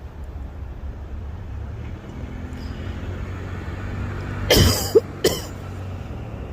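Two coughs, a longer one about four and a half seconds in and a shorter one about half a second later.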